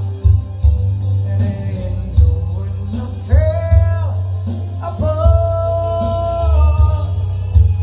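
A man singing a slow song into a microphone over a backing track with a heavy bass beat. He holds a note briefly past three seconds in, and a longer one from about five seconds in.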